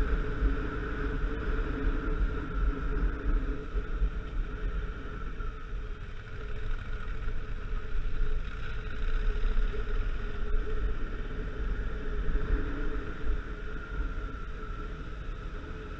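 Motorcycle engine running at a steady pitch while riding, with heavy wind rumble on the microphone.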